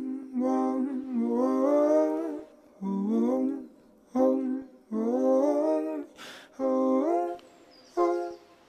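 A voice humming a slow wordless melody in short phrases of one to two seconds, with brief pauses between them: the a cappella opening of a song.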